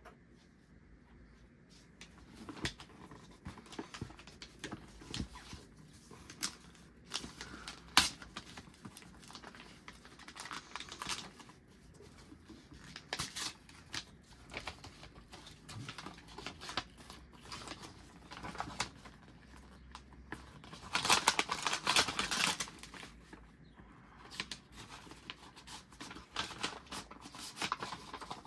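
Brown kraft-paper packaging handled and opened by hand: paper rustling and crinkling in short spells, with a sharp tap about a quarter of the way in and a louder stretch of paper rasping lasting a second or two about three quarters of the way through.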